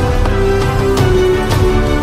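Background music: held notes over a steady beat, about two beats a second.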